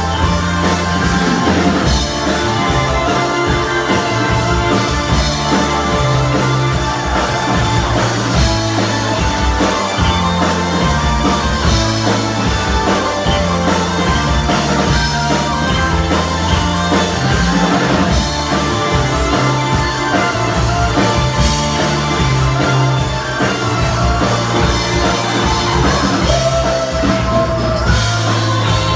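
Live rock band playing an instrumental passage: drum kit, electric guitars, bass and keyboards, with a steady driving bass line.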